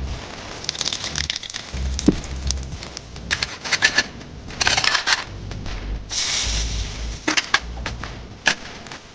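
Food sizzling in a hot pan: bursts of crackling and hissing that come and go every second or two, with scattered sharp clicks.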